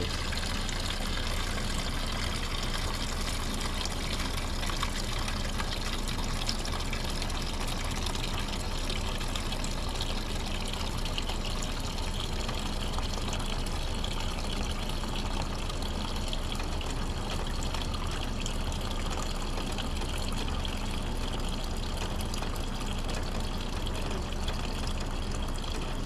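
A thin stream of fuel-flooded crankcase liquid pouring steadily from a Honda-clone single-cylinder engine into a plastic drain pan. The crankcase is full of gasoline.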